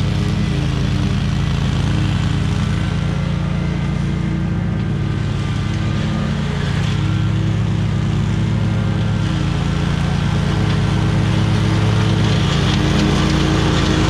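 Small petrol engine of lawn equipment running steadily at high speed.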